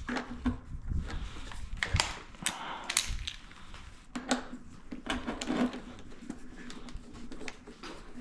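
Irregular clicks, clacks and light knocks of plastic hose couplings being handled and pushed in and twisted onto an electric pressure washer, with a few duller thumps.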